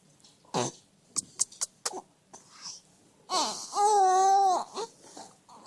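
Young child fussing: a few light clicks and taps, then one long whining cry about three seconds in, with another beginning at the end.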